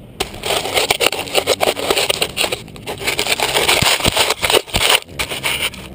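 Gloved hand rubbing and scraping against a dirt-covered helmet camera right at its microphone: a loud, irregular run of scratchy strokes, starting abruptly.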